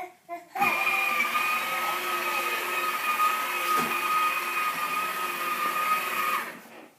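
Toy train's small electric motor running steadily as it goes around its track, a mechanical whir with a steady high whine that switches on abruptly about half a second in and stops just before the end, with a single click about halfway through.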